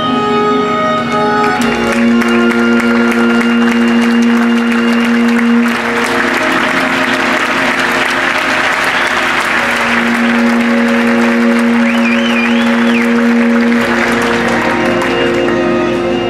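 Audience applause swelling over slow music of long held notes, starting about two seconds in and fading away near the end.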